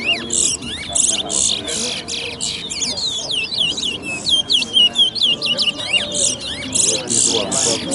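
Caged towa-towa finches singing in competition: fast, repeated chirping notes and short high trills follow one another without a break.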